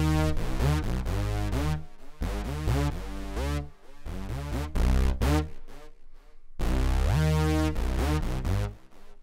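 Synth bass riff played back from the FL Studio piano roll, with slide notes making the pitch glide from one note into the next. The pattern plays through, stops briefly about six seconds in, and starts again.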